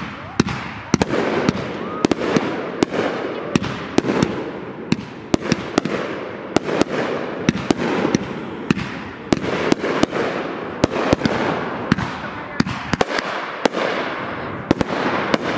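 Consumer Class C aerial fireworks going off in quick succession: a steady stream of sharp bangs, about two a second, over continuous crackling from the bursting stars.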